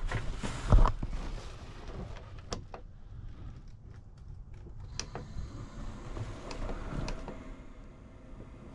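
Handling noises: a heavy thump about a second in, then a few scattered light clicks and knocks.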